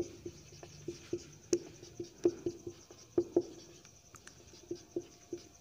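Marker writing on a whiteboard: a string of short, irregular light taps and strokes as the tip touches and moves across the board, several a second.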